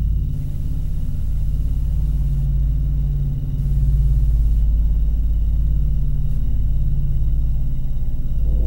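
A steady low rumbling drone, with a few faint steady tones above it.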